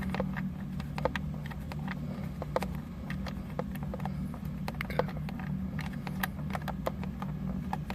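Scattered light clicks and taps at irregular intervals as hands handle the car's plastic dashboard trim and loose screws, over a steady low hum.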